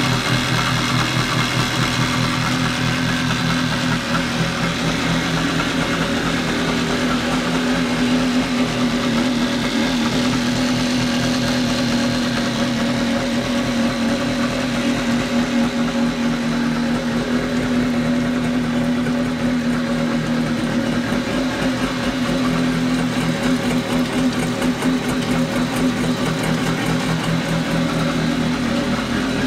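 1987 Kawasaki X2's two-stroke engine idling steadily on the stand, run out of the water with a garden hose supplying its cooling water.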